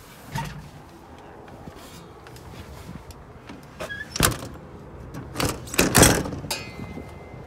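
A few sharp knocks and clacks: one small one at the start, then a louder run of them in the second half, ending in a short scrape with a faint ring.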